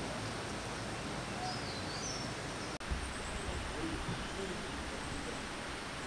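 Steady outdoor ambient hiss with a few faint, high bird chirps, briefly broken about three seconds in.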